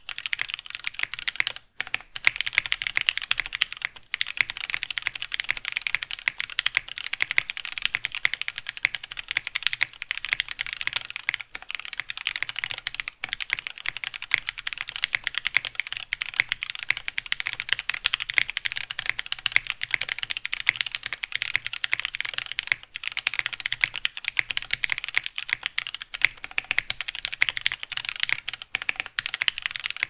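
Fast, continuous typing on a mechanical keyboard fitted with stock, unlubricated Kineticlabs Hippo linear switches (nylon housings, stainless steel springs): a dense stream of key clacks with a few brief pauses.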